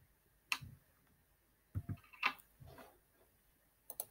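About half a dozen faint, sharp clicks and soft knocks spread over a few seconds, ending in a quick double click: a computer mouse being clicked and handled.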